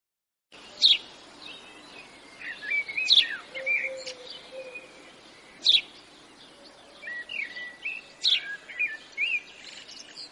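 Birds singing: sharp high chirps about every two and a half seconds, with shorter whistled notes and quick glides between them.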